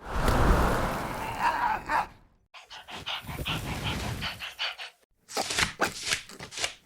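Dog sounds in three short edited clips, each cut off abruptly. The middle clip is a run of short, rhythmic breaths.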